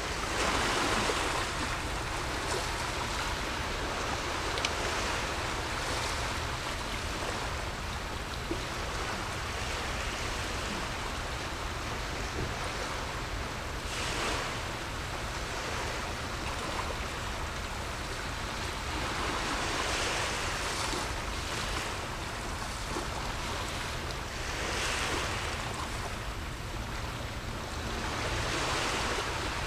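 Small sea waves washing in, a steady hiss of surf that swells every several seconds, over a steady low rumble.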